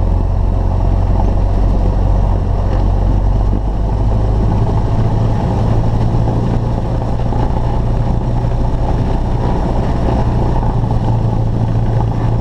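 Cessna 172's piston engine and propeller running steadily at run-up power, about 1700 RPM, for the pre-takeoff engine check. The low, even drone dips slightly about three and a half seconds in.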